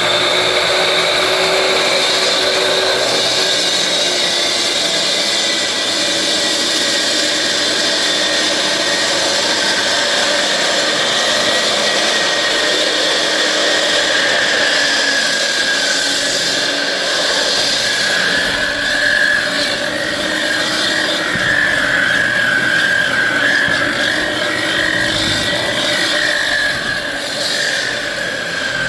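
Electric saw cutting a door opening into a wall, its motor and blade running with a loud, steady high whine whose pitch dips a little partway through.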